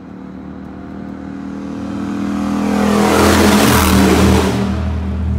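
A Triumph motorcycle passing close by, its engine growing louder over a couple of seconds, loudest about three to four seconds in, then easing off.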